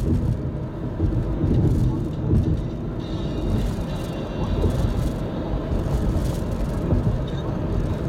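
Tyre and engine noise of a car driving on the road, heard from inside the cabin as a steady low rumble.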